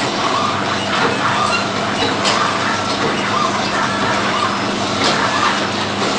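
Powder packaging machine running: a steady mechanical hum and clatter with occasional sharp clicks.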